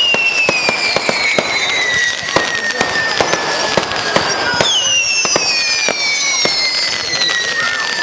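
Fireworks going off in a display: several overlapping whistles, each sliding slowly down in pitch over a few seconds, with a new one starting about halfway through, over a steady scatter of sharp pops and crackles.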